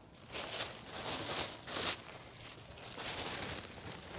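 Cloth rustling and handling noises in several short bursts as a hot wool fomentation pack and towels are picked up and moved.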